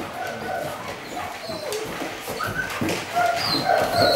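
Puppy whining in short, repeated whimpers and yips while waiting to be fed.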